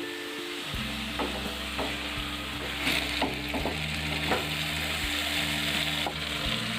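Chicken and chopped tomatoes frying in oil in a pan, sizzling steadily while the tomatoes soften, with a spatula stirring and tapping against the pan several times.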